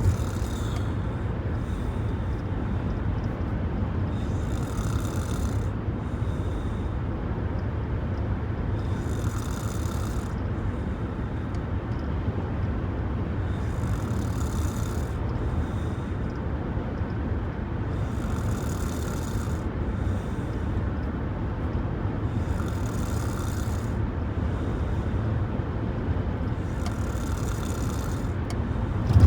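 A person snoring, each breath a hiss that comes back about every four and a half seconds, over a steady low rumble.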